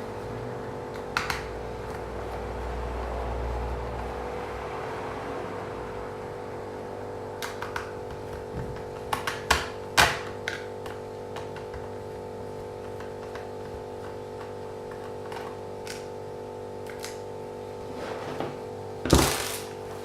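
Scattered clicks and knocks from a Lenovo G510 laptop and its small parts being handled during disassembly: a cluster in the middle and the loudest knock near the end. A steady hum runs underneath.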